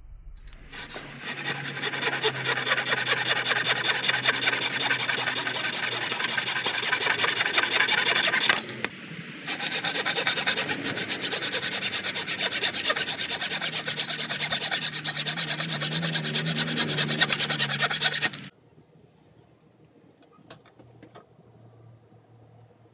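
Handsaw cutting a protruding wooden plug flush with a wooden surface, in rapid back-and-forth strokes. The sawing pauses briefly about nine seconds in, resumes, and stops about eighteen seconds in.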